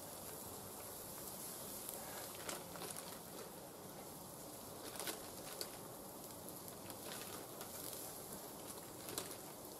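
Sausages sizzling on a charcoal grill: a faint steady hiss, with a few sharp clicks and crackles as they are turned over the coals.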